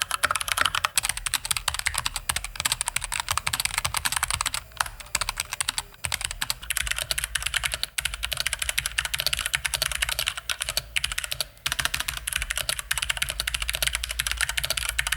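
Fast typing on a mechanical keyboard: a dense, continuous run of key clacks broken by a few brief pauses.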